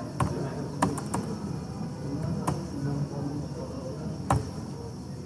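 Computer keyboard keys clicking, about five separate keystrokes spread over several seconds, over a low background murmur.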